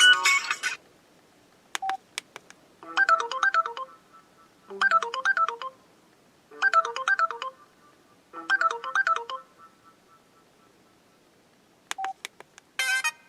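Samsung Convoy 4 phone ringtone: a short electronic melody phrase, each about a second long, played four times with short gaps between. A short beep with clicks comes about two seconds in and again near the end, just before the next ringtone begins.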